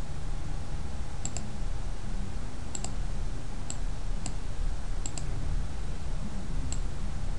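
Computer mouse buttons clicking: scattered sharp clicks, some in quick pairs, as layers are picked from a dropdown menu, over a steady low hum.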